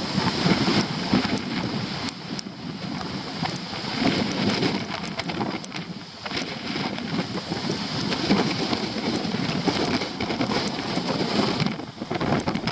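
Strong gusty wind buffeting the microphone, rising and falling, with rain beginning to strike the camera in scattered sharp ticks.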